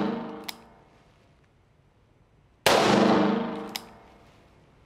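A .38 Special Taurus 856 Defender revolver fired once, about two and a half seconds in, each report echoing and fading over about a second in an indoor range; the clip opens on the fading echo of a shot just before. A short sharp click follows each shot about a second later.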